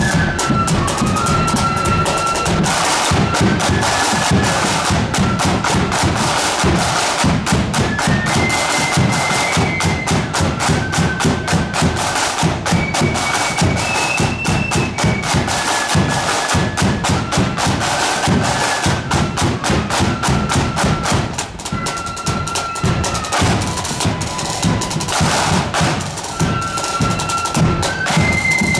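Marching flute band playing a tune: a high flute melody over rapid, steady drumming.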